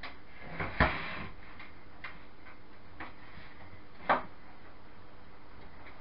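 A few scattered clicks and knocks from small computer-case parts being handled during PC assembly, the loudest about a second in and another about four seconds in, over a steady hiss.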